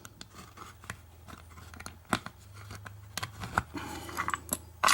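Small metal clicks and scrapes of a padlock and its key being handled, with a louder clack near the end.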